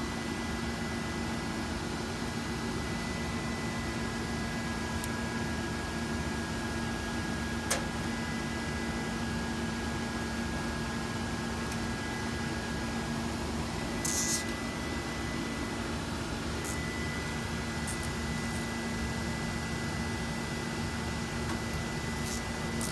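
Steady hum and fan noise of running equipment, with a constant low tone and a fainter high whine. A single sharp click comes about eight seconds in and a short rasp about fourteen seconds in, from cable ties being fastened around the battery cables.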